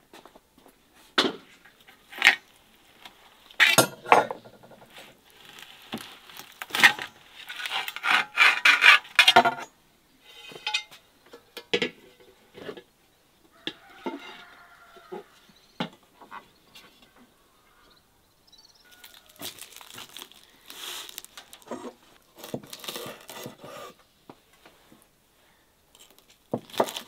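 Tableware being handled on a wooden table: plates, a metal tray and cutlery knocking, clinking and scraping in irregular bursts, with a dense run of clatter in the first half and softer handling noises later.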